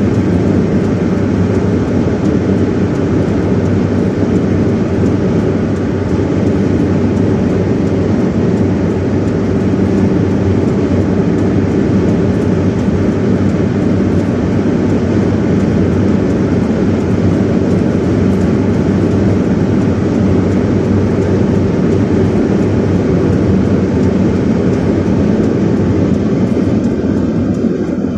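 Steady, loud roar of a vehicle driving through a sandstorm: wind and road noise that hardly changes.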